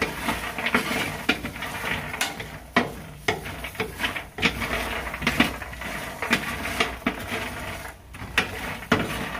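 Wooden spatula stirring peanuts across a baking tray: the nuts rattle and clatter against the tray, with irregular clicks and scrapes.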